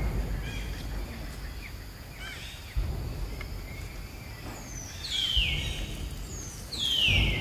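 High-pitched animal calls: a few faint chirps, then two loud squeals that fall steeply in pitch, about five and seven seconds in, over bursts of low rumble.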